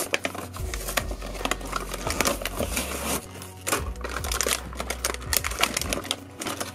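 Plastic blister packaging and its cardboard backing card being torn apart and pulled open by hand: irregular crinkling and crackling with sharp clicks.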